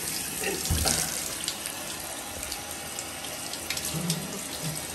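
Handheld shower head spraying water over a wet malamute's head and coat, the water running off and splashing into the bathtub in a steady hiss.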